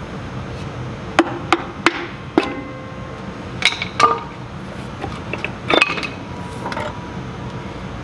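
Screwdriver prying and tapping at the rear brake cover of a Ford 1700 tractor: a string of sharp, irregular metal knocks and clinks, some ringing briefly, as the cover, sealed on with RTV, works free. A steady low hum runs underneath.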